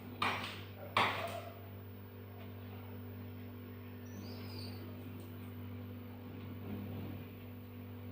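Two sharp clattering knocks about three-quarters of a second apart, each with a short ringing tail, over a steady low electrical hum.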